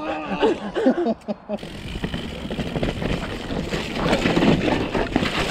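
Mountain bike rolling fast over rough, bumpy ground: tyre noise, rattling and knocks from the bike, with wind on the microphone. A short voice call at the start, then the riding noise takes over and grows denser about a second and a half in.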